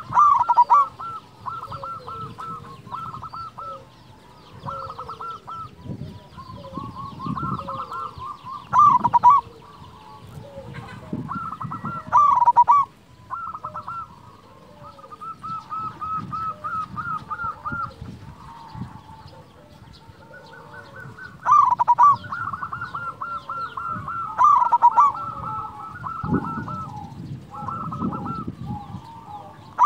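Zebra dove (perkutut) singing: repeated phrases of quick, rolling staccato coos, a few of them much louder than the rest.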